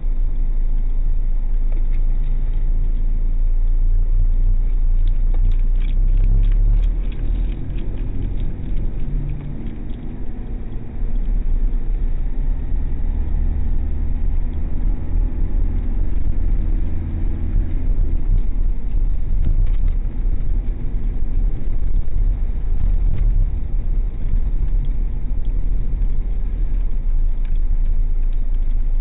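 A car driving through town, heard from inside the cabin: a steady low rumble of engine and tyres on the road.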